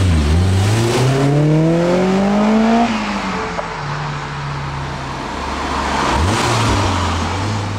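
Honda S2000's four-cylinder engine pulling away, its pitch rising steadily for about three seconds, then falling back and running at lower revs, with a brief dip near the end.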